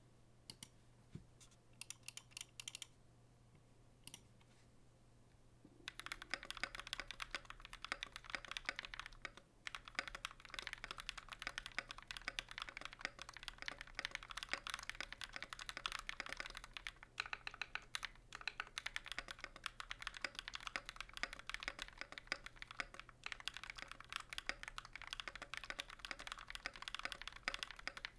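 Typing on a KBDfans KBD67 MK II custom mechanical keyboard with lubed Durock POM linear switches, an FR4 plate and GMK keycaps. A few isolated clicks come first, then from about six seconds in steady, fast typing with a few brief pauses. Some switches have a faint scratchiness, which the builder puts down to a possible lubing error.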